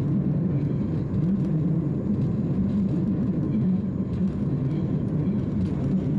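Passenger train on the Jaffa–Jerusalem line running along a winding track, heard from inside the carriage: a steady low rumble with faint scattered clicks.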